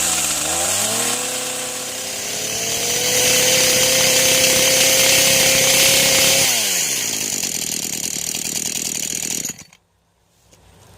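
Brand-new Echo CS-490 two-stroke chainsaw revving up from idle about half a second in and held at high speed for a few seconds, then dropping back to idle and falling silent about a second before the end.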